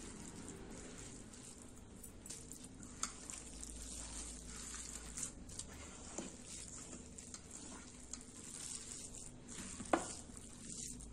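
A hand squeezing and mixing a wet, sticky mass of soaked flattened rice (poha) in a stainless steel bowl: soft, squishy squelching and rustling, with a few light clicks, the sharpest about ten seconds in.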